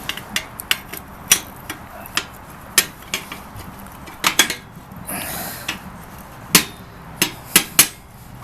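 Irregular metal clanks and knocks, with a short scrape about five seconds in, as the metal door of a homemade wood furnace is fitted back on.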